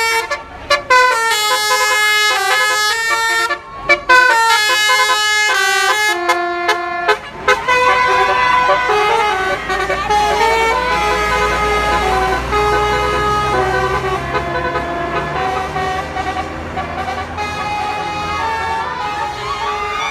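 Basuri multi-tone bus horn playing a sholawat tune: a melody of held notes stepping up and down, with short breaks between phrases for the first seven seconds or so. After that the notes run together without breaks, and a low bus engine hum comes up beneath them for a while.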